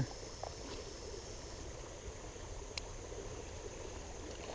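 Faint, steady river ambience: the rush of shallow flowing water with a low rumble of wind on the microphone and a steady high insect drone, and a small click near the end.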